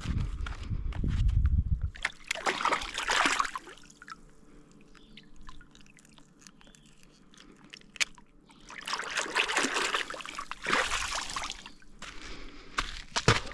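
Lake water splashing and sloshing at the shore in two bouts, about two seconds in and again around nine seconds in, with a quieter lull between. A low rumble comes first.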